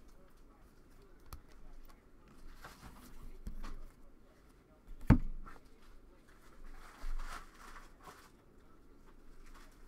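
A stack of chromium football trading cards being handled and sorted by hand: soft rustles and light clicks. One sharp thump about five seconds in is the loudest sound.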